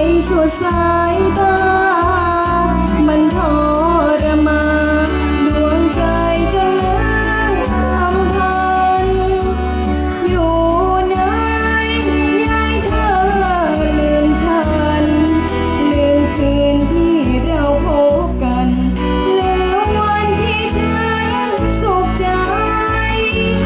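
A girl singing a Thai luk thung song into a microphone over instrumental backing music with a steady bass beat, amplified through stage speakers.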